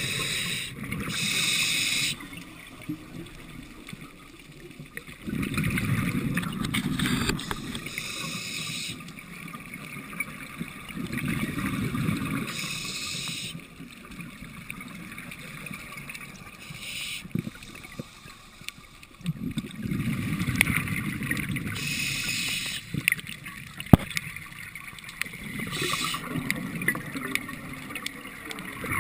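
Scuba diver breathing through a regulator underwater: a short hissing inhale every few seconds, each followed by a longer low gurgle of exhaled bubbles.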